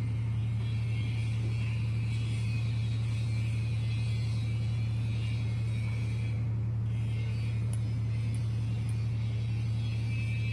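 Ship's diesel machinery running with a steady, unchanging low drone.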